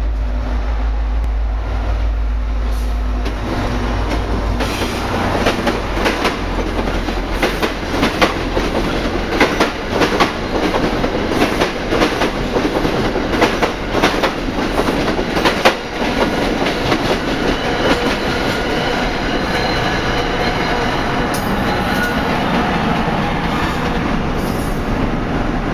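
NJ Transit GP40 diesel locomotive passing, its engine rumbling deep for the first few seconds. Then its Comet coaches roll by with a clickety-clack of wheels over rail joints, sharp clicks coming thick between about five and sixteen seconds in, and a thin wheel squeal in the later part.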